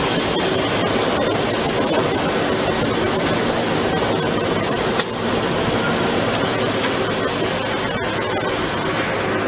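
DAMA GMDC-3100 CNC drilling and plasma-cutting machine running with a loud, steady rushing noise over a low hum, with a single sharp click about five seconds in.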